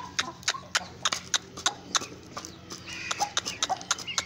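Aseel chickens pecking grain, the beak tapping sharply on a plastic feed bowl about three to four times a second. Short high chirps come in near the end.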